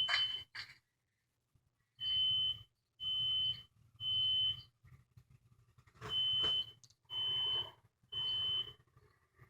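Building fire alarm sounding a high, steady beep in groups of three about a second apart, with a longer pause between groups: the temporal-three evacuation signal.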